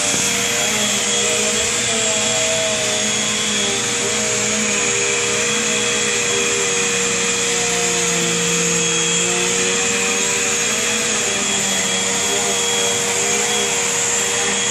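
Vacuum cleaner running steadily, its motor giving a constant whirring noise with a steady hum.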